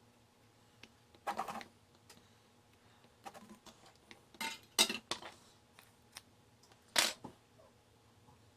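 Tools and small parts handled on a workbench: several short clattering scrapes and clicks, the loudest about five seconds in, over a faint steady hum.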